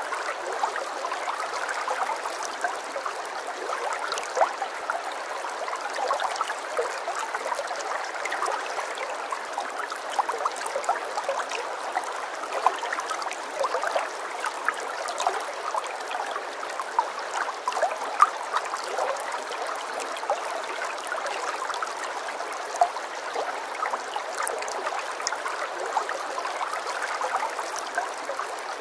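Running water, a steady babbling stream with many small splashes and trickles, and nothing in the low end.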